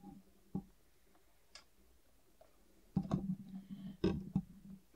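Light clicks and taps of a thin metal crossbar pin against the tonearm's mounting bracket as it is worked through the bracket holes by hand: a single click near the start, then two short clusters of clicks about three and four seconds in.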